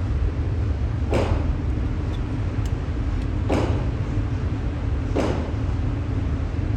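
Three dull, muffled gunshots from other shooters at a shooting range, about a second or two apart, over a steady low rumble.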